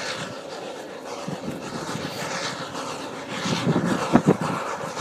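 Snowdon Mountain Railway rack train running up near the summit, a steady mechanical rumble and rattle growing louder as it comes closer. Two sharp knocks stand out just after four seconds in.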